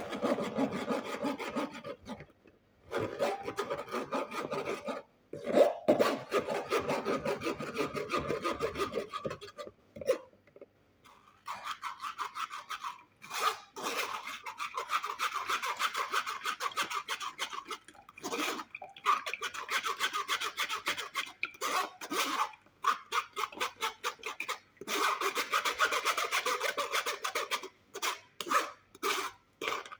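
Quick, repeated scraping or rubbing strokes, several a second, in bouts of a few seconds with short pauses between them, ending in a few separate strokes.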